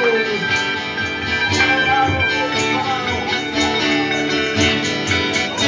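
Live church band playing: acoustic guitar strummed in a steady rhythm together with a small plucked string instrument.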